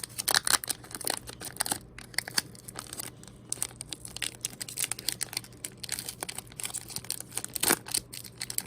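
Foil booster-pack wrapper crinkling and tearing as it is worked open by hand, a dense run of irregular crackles.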